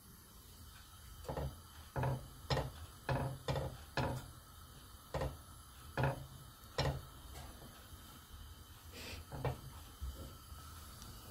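A series of light knocks and taps from handling kitchen things at the counter and stove, about a dozen in quick succession, then two more near the end.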